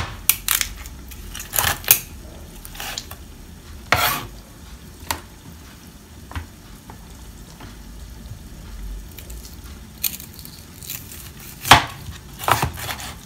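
Scattered clinks and knocks of a cooking utensil against a pan or pot, about a dozen at irregular intervals, the loudest right at the start and near the end, over a faint steady hiss.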